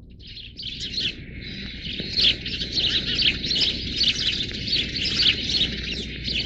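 Many small birds chirping in a dense chorus of quick, high chirps over a dull background rumble.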